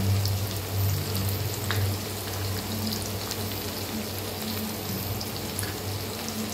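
Freshly added sliced onions sizzling in hot oil in a pan, with scattered small crackles over a steady low hum.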